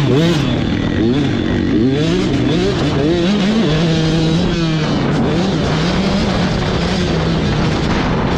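Motocross dirt bike engine heard from the bike itself, revving up and down in quick swings as the throttle is worked over the track, then running at a steadier pitch from about halfway on.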